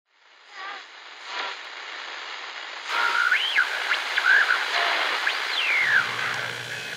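Vintage radio being tuned across the band: static hiss that opens up about three seconds in, with whistling tones gliding up and down as the dial sweeps past stations. A low hum joins near the end.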